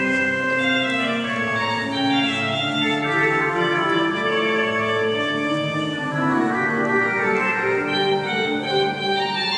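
Restored Tornaghi pipe organ playing held chords in several parts, with the notes moving every half second or so.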